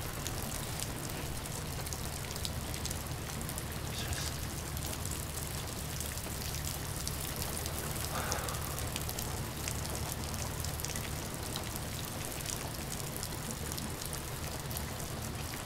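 Steady rain falling, a dense patter of fine drops, over a steady low hum.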